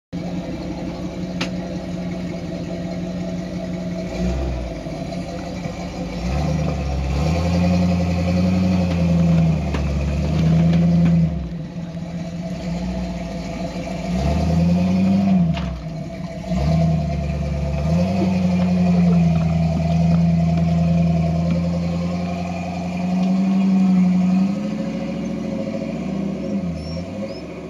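Off-road 4x4's engine working under load on a rock climb, revving up and easing off several times, with brief drops in engine speed between pushes and an occasional sharp click.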